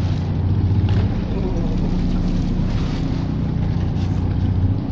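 A sport-fishing boat's engines running steadily, a low even hum.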